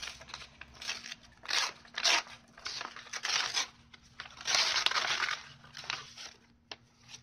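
A manila paper envelope being torn open by hand: paper ripping and crinkling in uneven bursts, the loudest rips about a second and a half in and again around four and a half seconds in.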